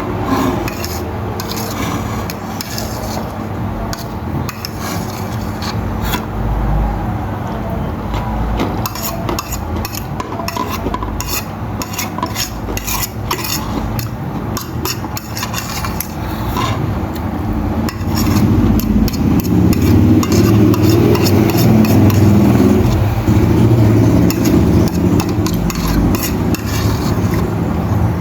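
A metal utensil stirring and scraping fried noodles and bean sprouts in a pan, with many quick clicks of metal on metal. A low steady rumble runs underneath and grows louder about two-thirds of the way through.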